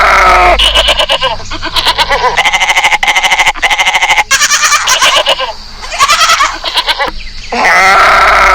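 Goats bleating: a run of loud, quavering bleats one after another.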